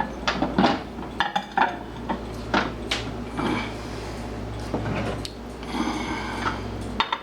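Two cups clinking and knocking against each other and the microwave's interior as they are shuffled in side by side, a string of separate clinks over a low steady hum.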